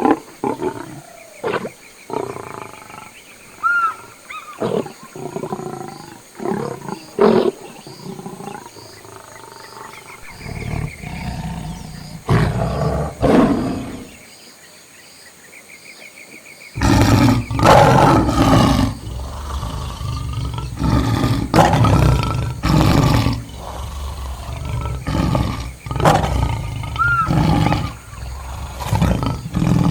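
Lions roaring and growling in short, loud bursts, which become louder and almost continuous a little past halfway.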